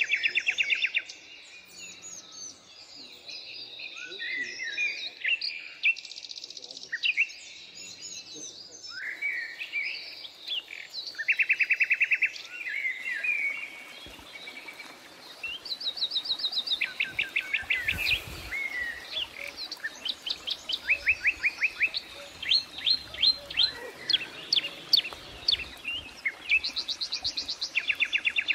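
Forest birds singing in a lively chorus: several birds overlapping, many of them in fast trills of short repeated notes, with high chirps and whistled glides between.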